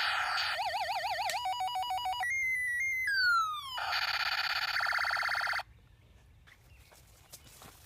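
A string of synthesized electronic sound effects: a fast warbling tone, stepped beeping tones, a falling glide and then a dense buzzing tone, cutting off suddenly about five and a half seconds in, leaving only faint background.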